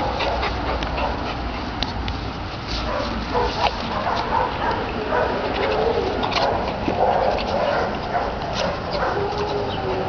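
A dog panting close to the microphone and making soft, low cooing or whining sounds while it rolls and plays on grass, over rustling and a low rumble from handling the recorder.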